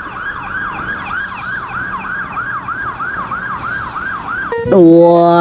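Electronic siren in a fast yelp, each wail sweeping between a high and a lower pitch about three to four times a second. It stops about four and a half seconds in, and a loud drawn-out voice cuts in.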